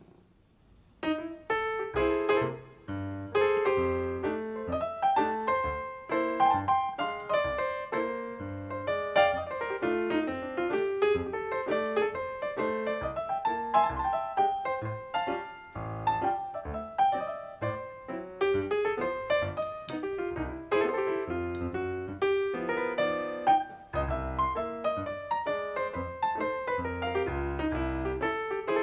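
Piano music playing a melody over low notes, starting about a second in.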